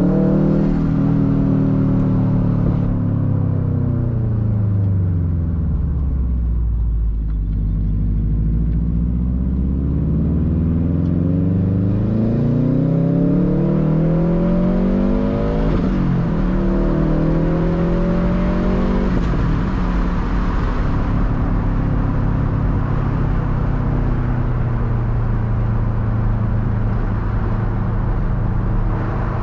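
2013 Subaru WRX STI's turbocharged 2.5-litre flat-four engine heard through a Tomei Expreme Ti titanium turbo-back exhaust while driving. The engine note falls for several seconds, then climbs under acceleration with two quick upshifts, each a sudden drop in pitch, about halfway through, and settles to a steady cruise for the last third.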